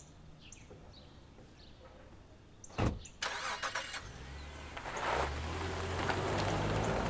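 A car door shuts with a sharp knock, then a small car engine starts and runs, getting louder as the car pulls away.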